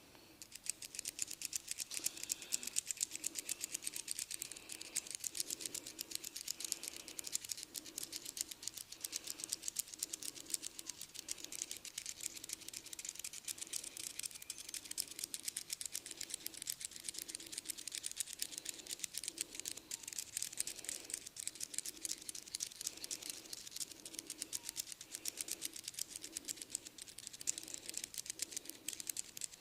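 Head-massage sounds: fast, dense crackling of hands rubbing and scratching the hair and scalp close to the microphone, with a soft pulse about once a second from the rhythm of the strokes. It starts about half a second in.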